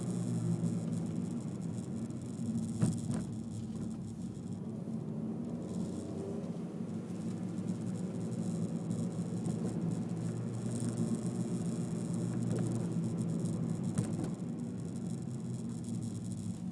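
Honda Civic's 1.8-litre four-cylinder engine running steadily on a descent, with road and tyre noise heard from inside the cabin. A couple of short knocks stand out, about three seconds in and again near fourteen seconds.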